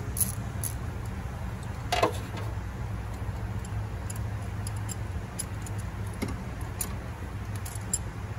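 Metal hand tools clinking while a spark plug is taken out of the engine with a ratchet, extension and spark plug socket: scattered light clinks, the loudest about two seconds in, over a steady low hum.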